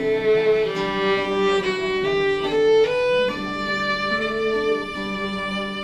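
Instrumental interlude of a slow worship song, with no singing: a melody of held notes moving step by step over sustained chords, in a string-like tone.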